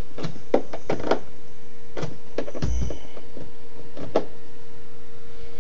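Clicks and knocks of hands handling an Ensoniq ASR-10 sampler keyboard's panel and cables, about nine in the first four and a half seconds with a dull thump near the middle, over a steady hum.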